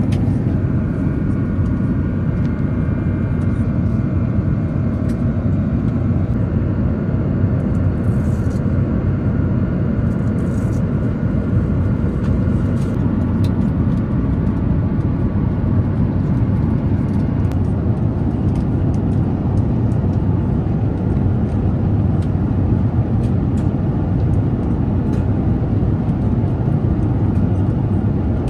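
Steady in-flight cabin noise of an Airbus A350 airliner: a constant low rush of engine and airflow noise, with a few faint ticks.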